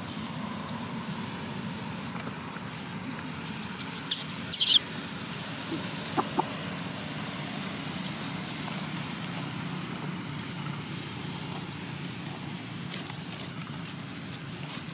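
Animal calls: two sharp, high-pitched squeals falling in pitch about four seconds in, then two short chirps a couple of seconds later, over a steady low outdoor rumble.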